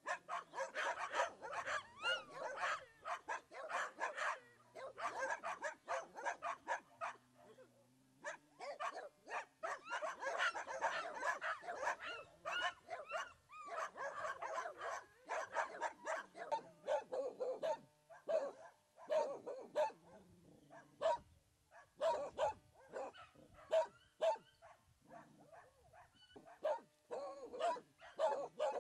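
Dogs barking repeatedly, a dense run of barks for the first half that thins to scattered barks in the second half.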